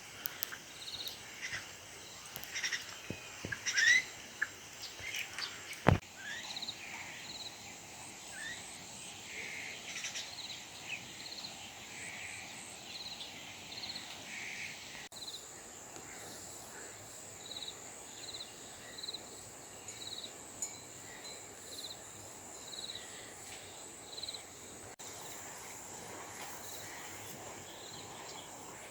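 Birds chirping and calling in short repeated notes and quick gliding calls over a steady outdoor hiss, with one sharp click about six seconds in.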